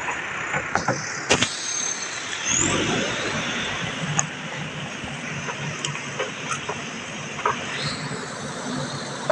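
Steady rush of a wide, fast-flowing muddy river, with a few sharp crunches of footsteps on the shore pebbles in the first half.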